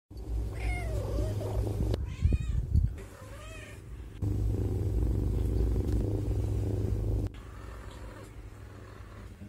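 Domestic cat meowing: several drawn-out calls that rise and fall in pitch over the first four seconds. Then a low, steady purr that starts and cuts off abruptly, followed by quieter purring.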